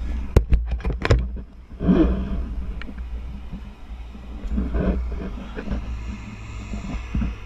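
Wind rumbling on a helmet-mounted camera's microphone during a parachute descent. A quick run of sharp snaps comes about half a second to a second in, and gusty bursts around two and five seconds.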